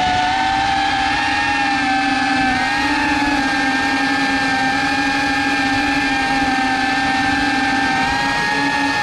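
Cinewhoop FPV drone's brushless motors and ducted propellers in flight, heard close-up from the camera mounted on the drone. A steady whine whose pitch wavers slightly as the throttle changes.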